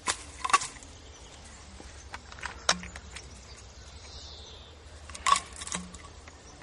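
Bottles clinking and knocking together as they are set down and handled in grass: a handful of separate sharp knocks, two of them with a brief ring.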